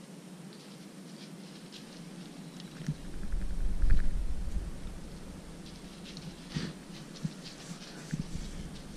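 Low rumble on the bow-mounted camera's microphone, swelling for about two seconds partway through, with scattered faint ticks and rustles around it.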